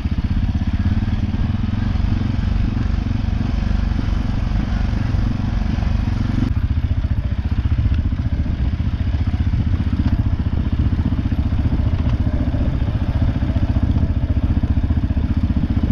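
CFMoto 520S ATV's single-cylinder engine running steadily as the quad is ridden along a grass track. The sound changes abruptly about six and a half seconds in.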